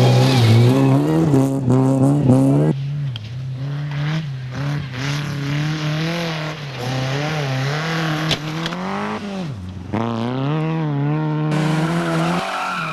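Competition car engine at high revs, its note rising and falling repeatedly with gear changes and lifts off the throttle, with a sharp dip and recovery about ten seconds in. The sound changes abruptly twice as if cut between different cars or spots.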